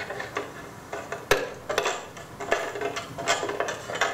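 Plastic snap-in gutter guard being handled and clipped onto a roof gutter: irregular plastic clicks and clatter, with one sharp snap about a second in.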